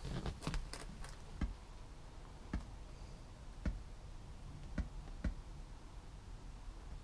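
Sharp clicks and taps from handling a smartphone: plugging a jack cable into it and tapping its screen. There is a quick cluster in the first second, then single clicks about a second apart.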